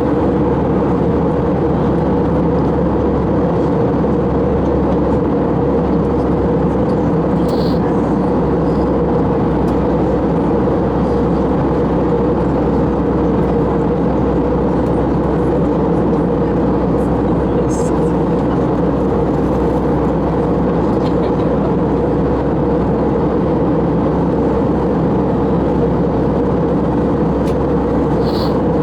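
Steady cabin noise inside an Airbus A321 airliner during its descent: the even hum of the jet engines mixed with the rush of air over the fuselage, holding level throughout.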